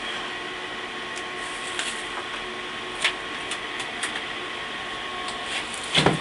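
A steady mechanical hum with faint whining tones, broken by a few light clicks, and a louder knock of the camera being handled near the end.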